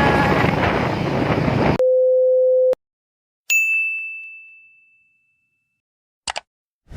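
Dense mixed sound that cuts off abruptly, then added sound effects: a steady electronic beep about a second long, a bright ding that rings and fades away, and a short double blip near the end.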